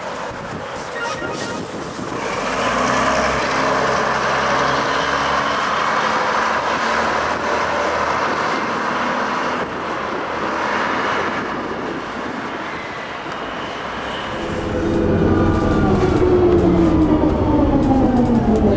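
MCW Metrobus Mk II double-decker bus's diesel engine running, heard first from the roadside and then from on board. In the last few seconds it is louder, with its engine note sliding down in pitch.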